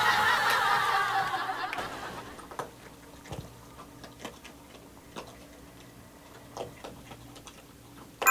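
A raccoon eating dry kibble from a metal bowl: faint, irregular crunches and clicks. A soft hissing wash fades out over the first two seconds.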